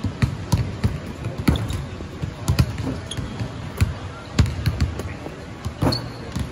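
Basketballs bouncing on a hardwood court: a string of uneven thuds, several a second.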